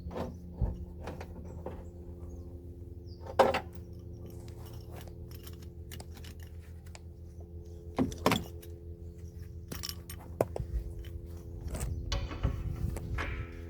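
Scattered clinks and knocks of tools and metal parts being handled, loudest once about three and a half seconds in and twice around eight seconds, with rustling near the end, over a steady hum.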